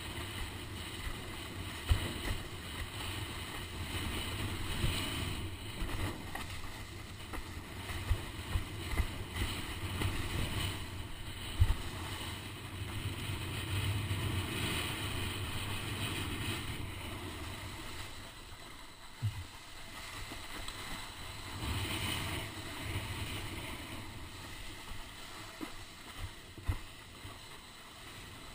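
Wind buffeting a GoPro microphone and water rushing past a windsurf board sailing fast over choppy sea, with scattered sharp knocks.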